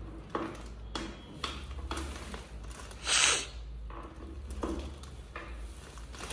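Office-chair parts handled and fitted by hand: a scatter of light clicks and knocks, with a short burst of rustling from the plastic wrapping about three seconds in.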